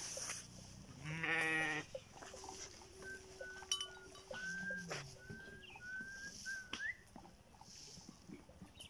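A livestock animal gives one loud, wavering call lasting under a second, about a second in. A series of short high chirps follows.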